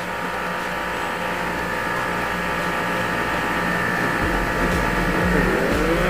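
Ckeyin battery-powered pore vacuum (blackhead remover) running, its small suction pump motor humming steadily while the nozzle is drawn over the skin of the cheek and nose. Near the end the hum's pitch sags briefly and comes back up.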